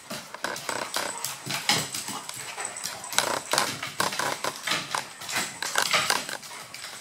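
Golden Retriever and Maltese playing, their claws clicking and scrabbling irregularly on a hardwood floor.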